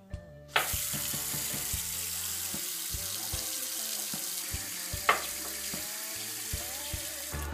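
Bathroom sink tap turned on: water runs from the brass spout into the basin as a steady rush that starts suddenly about half a second in. A short sharp sound comes partway through as the handle is worked, and the flow breaks briefly near the end.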